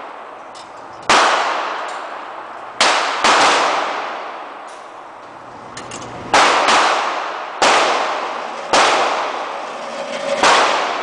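Glock pistol firing seven loud shots at an uneven pace, two of them about half a second apart, each followed by a long ringing echo that dies away over about a second.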